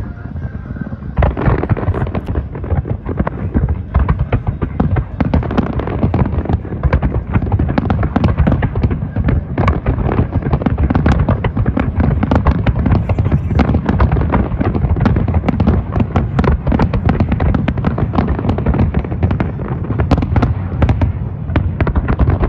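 Large aerial fireworks display: a dense, continuous barrage of shells bursting in rapid succession over a deep rumble, starting about a second in.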